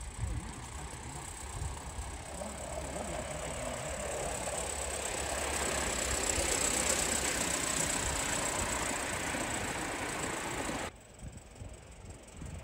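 O gauge live steam GNR Atlantic model locomotive running past: a hiss of steam and running gear that builds to a peak in the middle and cuts off abruptly near the end.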